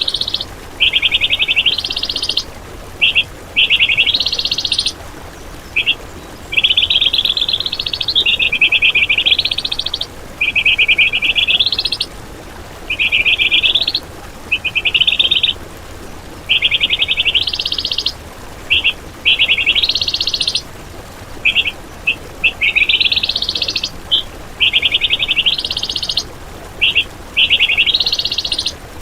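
A songbird repeating harsh, rattling trill phrases of about a second each, many rising in pitch at the end, with short chip notes and brief pauses between them. This is the rough, rapid 'tembakan' (shot) material of Indonesian songbird masteran recordings.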